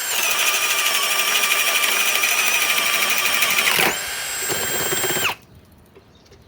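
Ryobi PBLHM101 cordless hammer drill on low speed 1, turning a 1 1/2-inch spade bit into a bore, with a loaded motor whine and heavy cutting noise. About four seconds in the load eases as the bit makes it through, and the motor spins more freely. It stops about a second later.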